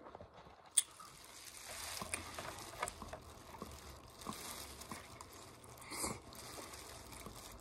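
Open-mouthed chewing and smacking of a tostada salad: soft, scattered wet clicks over a faint hiss. A fork works in the clear plastic container, and a louder short noise comes about six seconds in as a forkful goes into the mouth.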